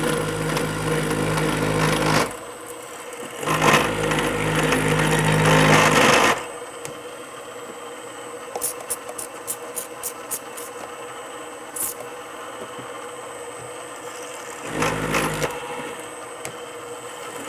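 Gearhead drill press turning slowly with a carbide-tipped hole saw grinding through stainless Damascus steel in three spells: two of a few seconds early on and a short one near the end, with the drill running steady and unloaded between them, when a few light ticks are heard. The hole saw is close to breaking through the steel.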